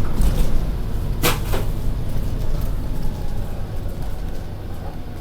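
Volvo B7RLE bus's diesel engine running with a low rumble that eases off slightly toward the end. About a second in there is a short, sharp click-like burst, like a door or air release.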